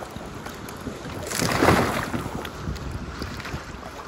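Lake water sloshing and splashing as a pedal-drive fishing kayak is rolled over and capsized by a swimmer, with one louder rushing splash about a second and a half in. Wind on the microphone runs under it.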